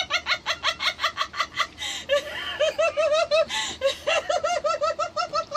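A person laughing hard: a long string of quick, high-pitched 'ha' pulses, broken twice by gasping in-breaths.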